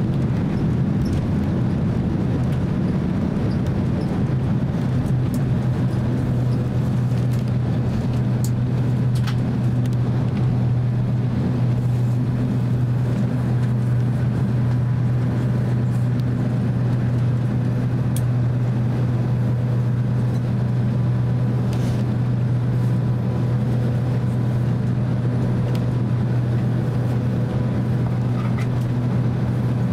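Steady cabin rumble inside a Boeing 767-300 taxiing on the ground after landing: its twin jet engines running low with the wheels rolling, and a faint steady hum over the low drone.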